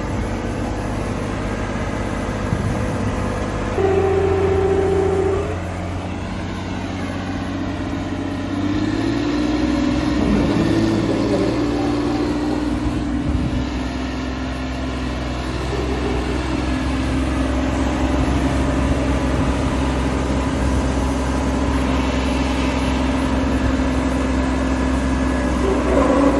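Combine harvester engine running steadily under load. A higher steady tone sounds for about a second and a half around four seconds in, and the engine's pitch shifts upward and settles between about nine and eleven seconds in.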